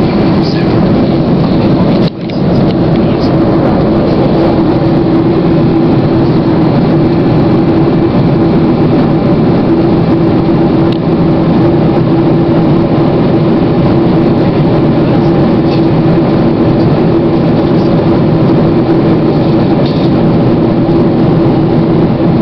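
Jet airliner cabin noise in flight: the steady rush of engines and airflow, with a constant low hum. It dips briefly about two seconds in.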